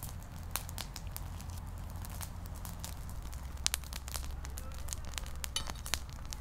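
Wood bonfire crackling, with irregular sharp pops over a steady low rumble.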